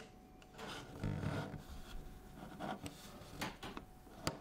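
Hands handling metal rangefinder cameras on a wooden table: soft rubbing and sliding, with a few light knocks and clicks in the second half as the cameras are set down and turned.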